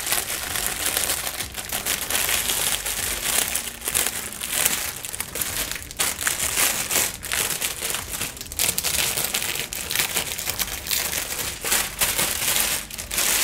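Clear plastic wrap rustling and crackling continuously as it is pulled and crumpled off by hand.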